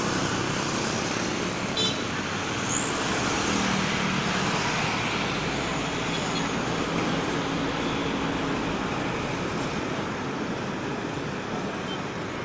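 Steady road traffic noise: vehicle engines running and tyres on the road, with a brief click about two seconds in.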